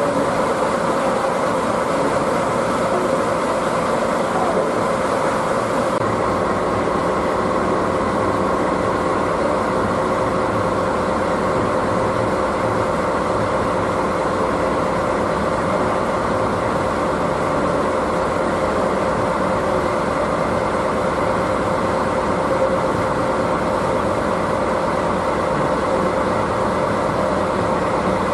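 Steady mechanical hum of a train standing in the station, with a few constant tones held throughout.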